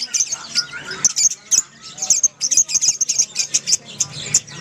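A flock of Fischer's lovebirds chattering together: many short, sharp, high chirps and squeaks overlapping in a dense, irregular stream.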